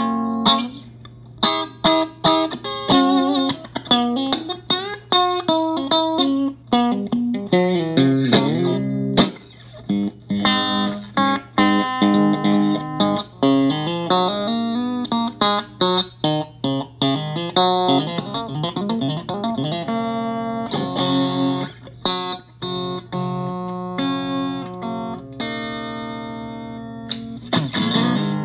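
Electric guitar played through a Fender Champ 15 combo amp: single-note lead lines with string bends and slides and quick runs, a note held with vibrato about two-thirds of the way in, and a few strummed chords near the end. A low steady hum sits underneath.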